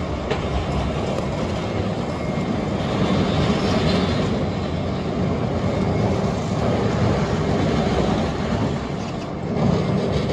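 Tractor scraping ice off a road surface: a steady grinding, rattling rumble of the scraper blade dragged over packed ice, with the tractor's engine running under it.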